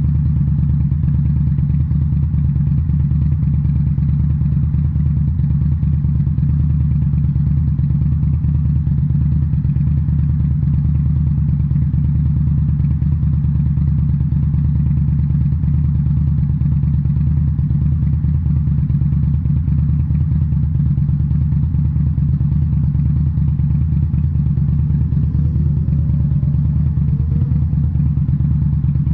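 2018 Indian Scout Bobber's liquid-cooled V-twin running steadily through Rinehart slip-on mufflers, a deep, throaty note at a constant cruise.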